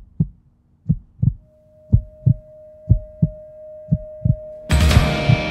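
Heartbeat sound effect: paired low lub-dub thumps about once a second, joined about a second and a half in by a single held tone. Loud music comes in suddenly near the end.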